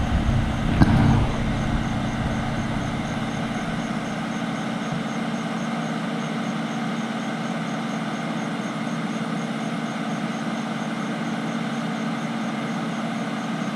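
Large excavator's diesel engine running steadily, a constant low hum, with a couple of brief knocks in the first two seconds.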